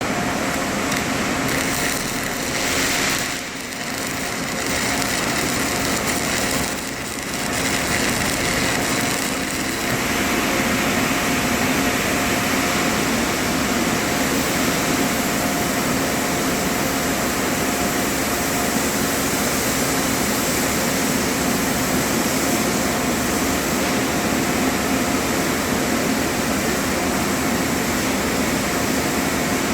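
Steady machine hum with a continuous hiss, dipping briefly twice in the first several seconds.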